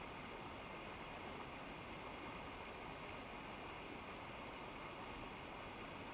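Steady rushing of a mountain river's water, an even noise with no change.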